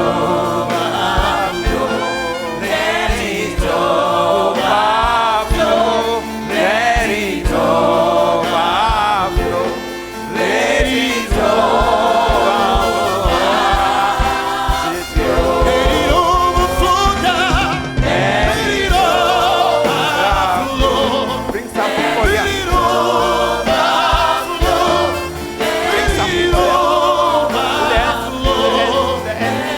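Gospel worship music: several voices singing together over a band with a steady beat.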